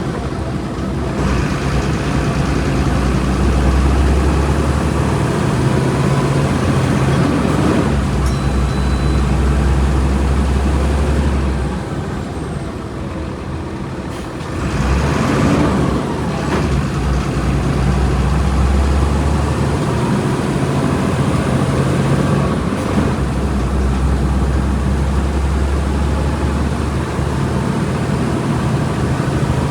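Volkswagen Volksbus 17.230 EOD bus engine running under way, a steady low drone. About twelve seconds in it drops back for a few seconds, then builds up again.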